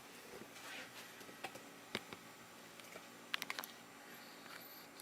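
Scattered light clicks and taps from a Lenovo ThinkPad X230 laptop being handled as it starts up, with a quick run of four or five clicks about halfway through.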